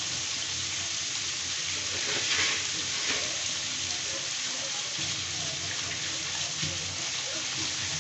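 Food sizzling steadily in a hot frying pan, an even hiss.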